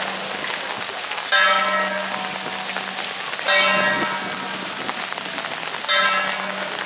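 Heavy rain hissing steadily. A struck metal instrument rings out three times, about every two and a half seconds, each strike holding several tones and fading over about a second.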